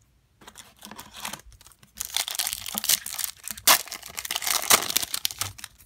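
Foil wrapper of a trading card pack (Topps 2017 WWE) crinkling and tearing open by hand. Light rustling first, then from about two seconds in a dense crinkle with a few sharp, loud rips.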